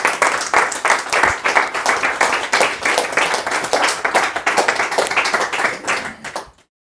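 A small group of people applauding, a dense patter of hand claps that dies down and stops abruptly near the end.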